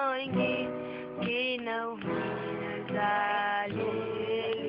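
Acoustic guitar strummed in chords, with a voice singing a held, wavering note about a second and a half in.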